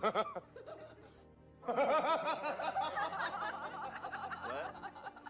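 Laughter, in quick chuckling pulses, starting after a short opening burst and running for about three seconds from around two seconds in, over soft background music.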